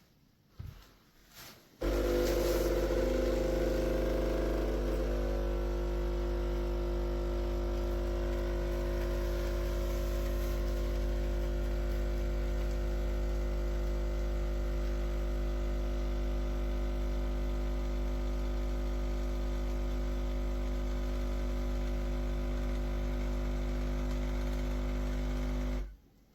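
Compact espresso machine's vibration pump running with a steady, loud buzzing hum, after two short clicks. Its tone shifts over the first few seconds, then holds steady for about 24 seconds before cutting off suddenly near the end.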